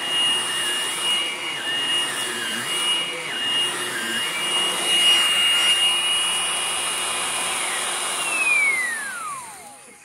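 Hoover Blade Plus cordless stick vacuum running on carpet: a steady high motor whine with a wavering tone beneath it. A little past eight seconds in, the whine falls away in pitch as the motor winds down.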